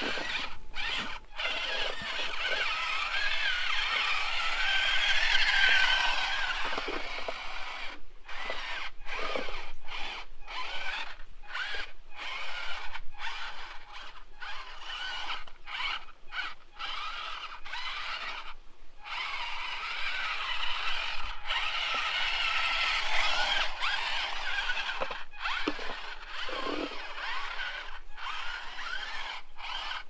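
Small electric motors and gearboxes of a toy radio-controlled tank-track chassis whining as it drives, the pitch rising and falling with the throttle, with squeaks and creaks from the tracks. The sound breaks off briefly again and again.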